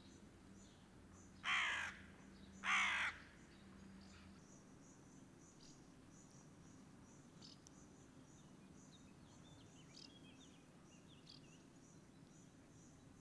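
Two loud, harsh bird calls about a second apart, over a steady high chirring of insects and a few faint chirps.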